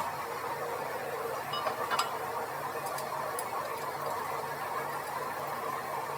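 A few light clicks and ticks of metal tools and parts being handled, one sharp click at the start and another about two seconds in, over a steady background hiss and low hum.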